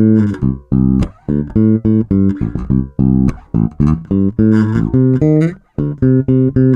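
Ibanez SR300 electric bass played alone, a line of about a dozen separate plucked notes. Its tone is one the reviewer calls vintage and smooth rather than punchy.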